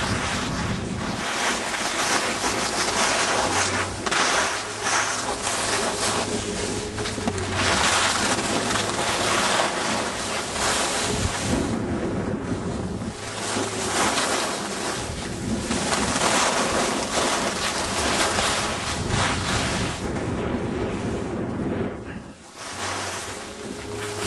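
Wind buffeting the microphone of a camera carried on a downhill ski run, mixed with the hiss and scrape of skis on snow, swelling and fading in waves, with a brief lull near the end.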